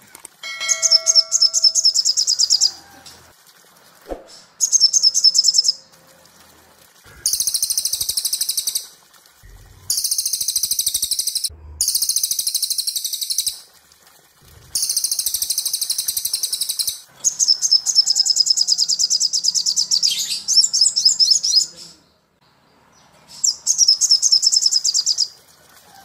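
Cililin and sogon songbirds in a training recording: fast, high-pitched trilling songs in about nine bursts of roughly two seconds each, with short gaps between them. A short bell-like chime sounds about half a second in.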